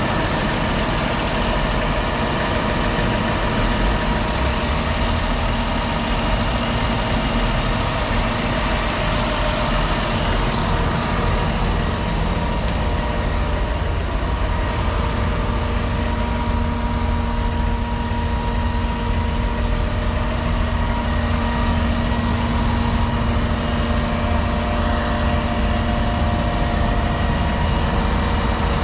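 2021 Fendt 828 Vario tractor's 6.1-litre six-cylinder diesel engine idling steadily.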